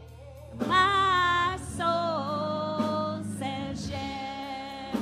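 A woman singing a slow gospel refrain into a microphone in three long held notes, over a steady low instrumental accompaniment.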